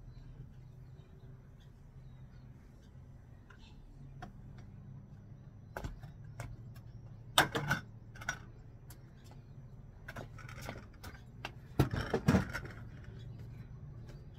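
Metal folding stepladder being handled and moved on a tiled floor: a few sharp clanks and knocks, the loudest clusters about halfway through and again near the end, over a low steady hum.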